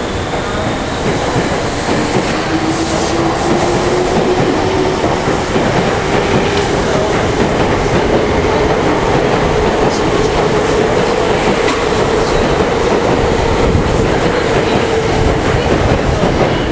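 Tokyo Metro 5000 series electric train accelerating out of a station: its motors give a whine that climbs slowly in pitch as it gathers speed, over a steady rumble and wheels clacking on the rail joints.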